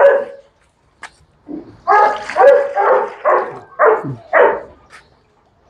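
A dog barking in a quick run of about seven short barks, the last few dropping in pitch.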